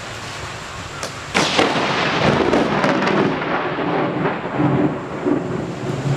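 Thunder from a nearby lightning strike: over a steady hiss, a sudden loud crack about a second in, then a long rolling rumble with crackles that eases slightly near the end.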